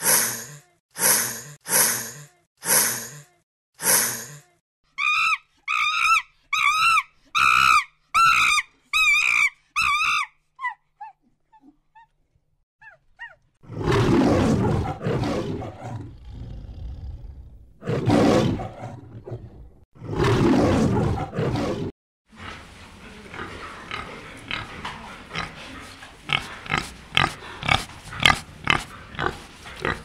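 A run of animal calls, one after another. First about five short breathy sounds, then a quick series of high chirping calls. About a third of the way in a lion roars three times, then wild boar grunt in a rapid series.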